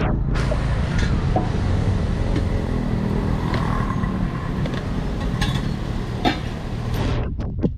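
Motor vehicle sound: a steady low rumble with a few faint clicks. The higher part of the sound drops away sharply near the end.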